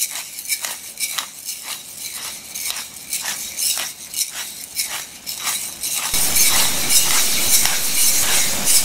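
Hand-twisted pepper mill grinding peppercorns: a run of short, gritty grinding strokes, about two to three a second. About six seconds in, this gives way abruptly to a louder, steady noise.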